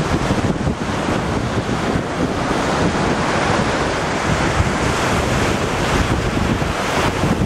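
Strong wind buffeting the microphone in gusts, over the steady rush of heavy surf breaking on a sandy beach after a storm.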